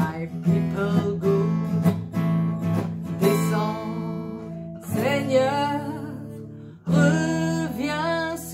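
A woman singing a folk spiritual to her own steady acoustic guitar strumming, her voice holding long sung lines from about five seconds in.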